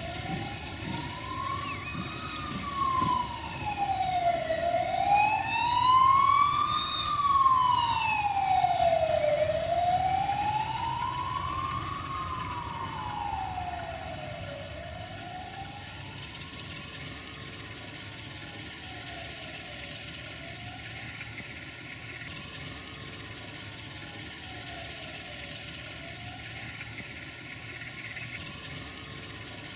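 Emergency vehicle siren wailing, its pitch sweeping slowly up and down about once every five seconds; it is loudest in the first half, then fades and carries on faintly.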